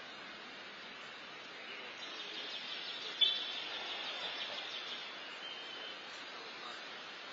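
Steady outdoor background noise. A higher hiss swells up through the middle, with one brief sharp high chirp about three seconds in.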